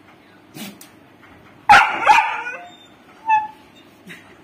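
A young yellow Labrador-type dog barks loudly about two seconds in, then gives a short high whine about a second later: it is pestering to be played with.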